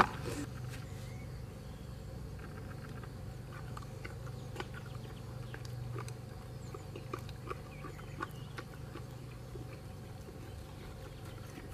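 A pony mouthing and swallowing a dose of liquid oral medicine while its head is held: scattered small clicks and smacks over a steady low outdoor hum.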